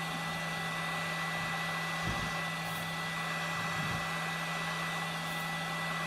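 Yihua 959D hot air rework station's handpiece fan blowing steadily in its cool-down run after the handpiece is set in its holder, a steady rush of air with a constant low hum and a thin high whine.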